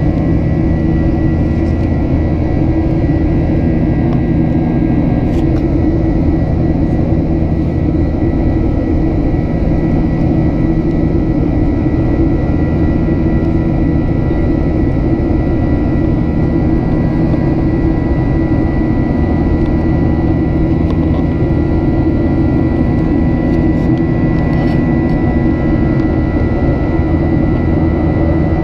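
Boeing 737-800 jet airliner in flight: a steady, unbroken rumble and rush of engine and air noise, with a thin steady whine above it.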